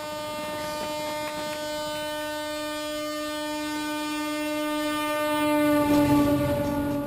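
Alstom diesel locomotive's horn sounding one long steady note as the train approaches, getting louder near the end.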